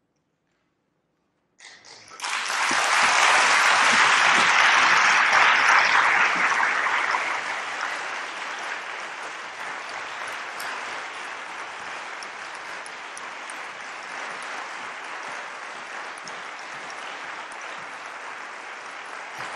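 Audience applause. It breaks out suddenly after a moment of silence, about two seconds in, is loudest over the next few seconds, then eases to steady clapping.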